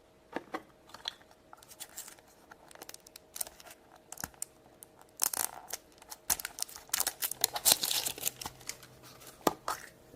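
Plastic toy packaging being handled and torn open by hand: crinkling, rustling and tearing with scattered small clicks, loudest and busiest from about five to eight seconds in.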